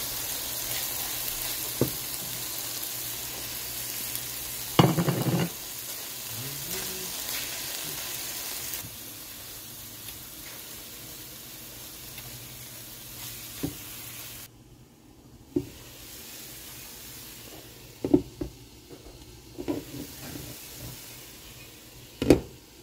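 Shredded cabbage with tomato frying in a non-stick pan: a steady sizzle as a wooden spatula stirs and scrapes through it, with one loud scrape about five seconds in. The sizzle falls away about a third of the way through, followed by a few sharp knocks, the last near the end as the glass lid on the pan is handled.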